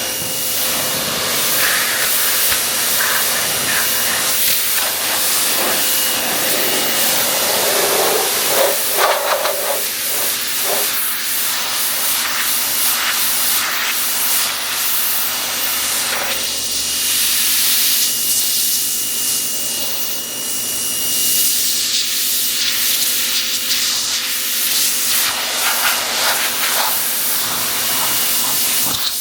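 Pressure washer jet spraying water onto a car's bodywork: a loud, steady hiss that changes in tone as the spray moves over different surfaces.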